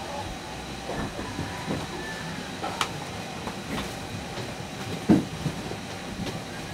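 A steady low rumble of background noise with scattered light knocks and taps, the loudest about five seconds in.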